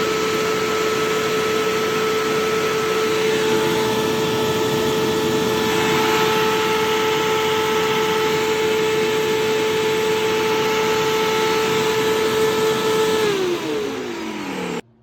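Vacuum cleaner motor running at full speed with a steady high whine over rushing air, then switched off about thirteen seconds in, its pitch falling as the motor winds down before the sound cuts off.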